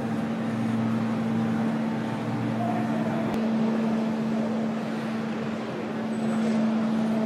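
Car assembly line machinery running in a large factory hall: a steady mechanical drone with a constant low hum, one short click about three seconds in, and a faint thin high whine coming in near the end.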